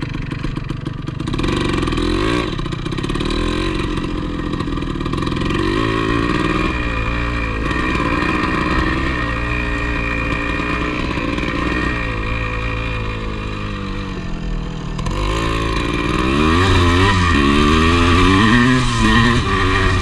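1985 Yamaha IT200's single-cylinder two-stroke engine revving hard on a steep, loose hillclimb, its pitch rising and falling repeatedly with the throttle. It grows louder near the end.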